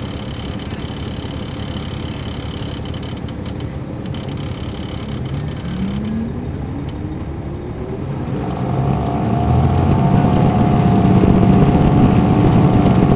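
Caterpillar C13 ACERT diesel engine of a 2007 MCI D4500CL coach, heard from on board. It runs steadily at first; about five seconds in its note begins to rise, and from about eight seconds it grows louder and stronger as the coach pulls away under power.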